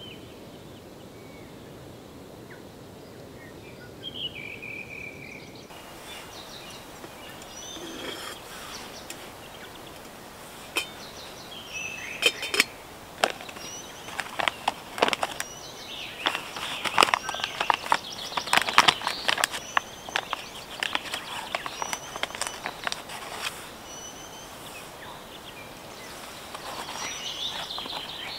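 Outdoor ambience with a steady background hiss and birds chirping now and then. From about twelve seconds in comes a run of sharp, irregular clicks and taps.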